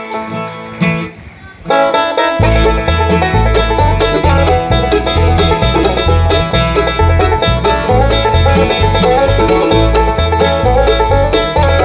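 Live bluegrass band playing the instrumental introduction to a song. After a brief lull about a second and a half in, the full band comes in, with a banjo leading over rhythm guitar and a bass line.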